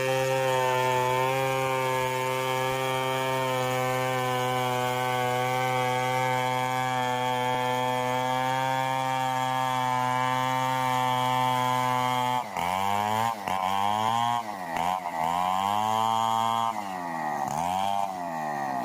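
Stihl 070 two-stroke chainsaw running at high revs with a steady pitch, then, about twelve seconds in, its pitch dips and climbs back several times as the revs fall and pick up.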